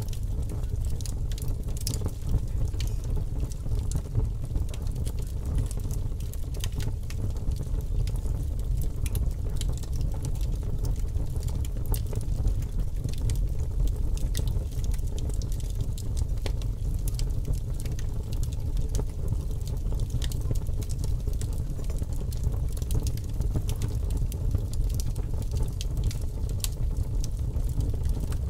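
Wood fire crackling: frequent small sharp pops and snaps scattered irregularly over a steady low rumble.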